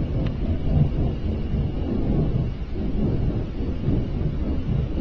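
Loud, steady, low rumbling roar with no clear pitch and no breaks, which the person recording likens to a giant flame. It is the unexplained 'strange sky sound' that was reported in 2011, and its source is not known.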